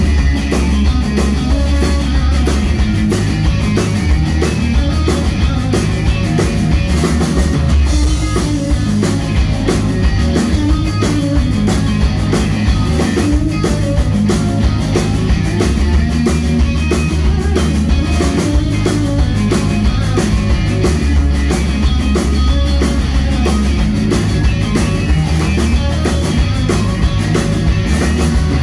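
Live rock band playing an instrumental passage: electric guitar over bass guitar and a drum kit, with a steady beat.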